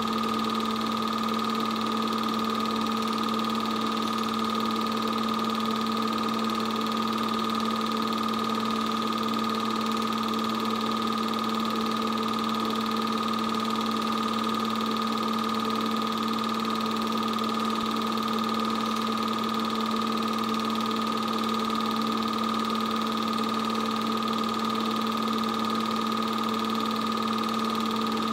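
8mm film projector running: a steady motor and fan hum with a constant high whine, unchanging in level.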